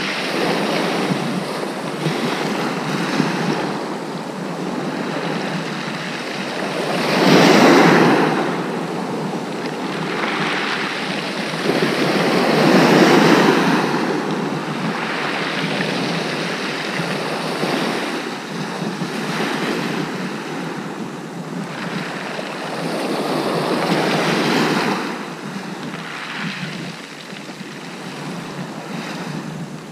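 Sea waves breaking and washing back over a shingle beach, swelling louder now and then, loudest about a third of the way in, with wind on the microphone.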